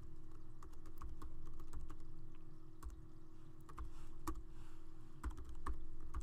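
Typing on a computer keyboard: irregular clicking keystrokes with short pauses between bursts, over a steady low hum.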